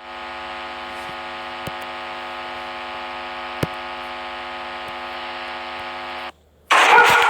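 A steady hum with several pitched overtones that cuts off abruptly about six seconds in. A much louder sound starts just before the end.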